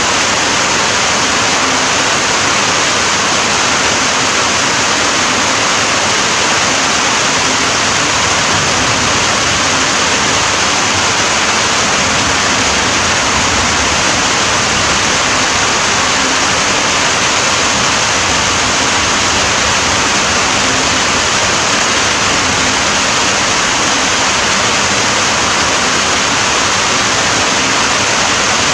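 Steady, heavy rain falling as an even wash of noise, with no single drops or other sounds standing out.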